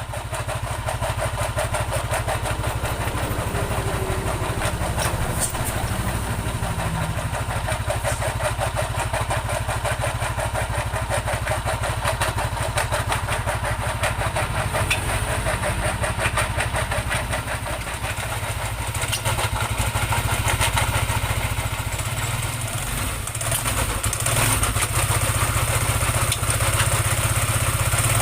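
Yamaha NMAX scooter's single-cylinder engine idling steadily, slightly louder near the end.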